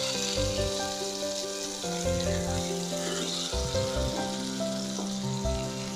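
Pearl spot fish frying in hot oil in a pan: a steady sizzle, just after the fish has been turned, with background music playing over it.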